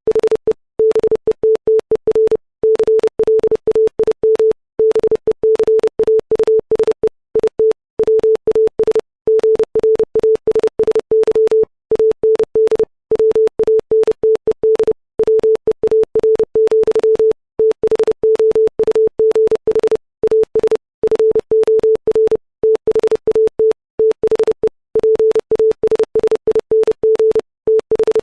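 Computer-generated Morse code at 30 words per minute: a pure sine-wave tone pitched at 440 hertz, keyed in rapid dots and dashes, with brief silences between letters and longer ones between words.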